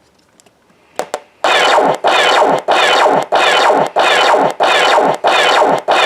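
BSG blaster sound-effects unit firing its blaster sound through a small speaker: a click, then from about a second and a half in a rapid run of about eight noisy shots, each falling in pitch, roughly one and a half a second.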